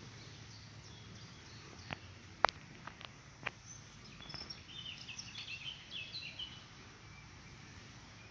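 Eurasian red squirrel gnawing at a nut, giving a few sharp cracks about two to three and a half seconds in, the loudest near two and a half seconds. A burst of bird chirping follows from about four to six and a half seconds in.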